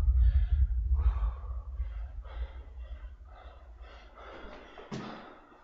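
Heavy, labored breathing of an athlete worn out partway through a set of medicine-ball wall throws, in repeated puffs. A single thud comes near the end from the 20-pound medicine ball.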